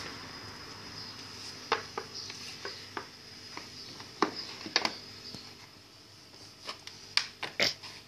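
Scattered plastic clicks and knocks as a black plastic defrost drip tray is handled and seated on top of a refrigerator compressor, with a quicker run of them near the end.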